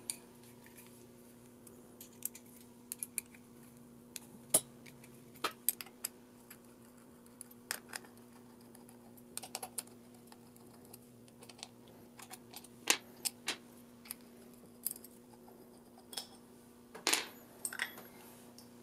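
Scattered small metallic clicks and clinks of an Allen key working socket-head cap screws out of an aluminium pneumatic fixture, with the loosened screws and metal parts being set down. A faint steady hum runs underneath.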